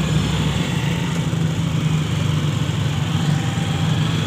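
Auto-rickshaw's small engine running, a steady low hum with road and rattle noise, heard from inside the passenger cabin.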